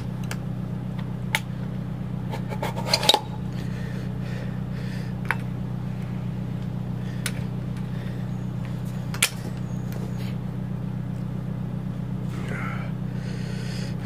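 Steady low hum of an idling car engine, with a few sharp plastic clicks and knocks from a telescoping snow brush being handled. The loudest clatter comes about three seconds in.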